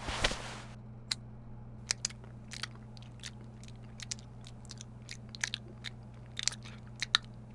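Someone chewing a candy bar: a short noisy bite at the start, then irregular crisp crunching clicks.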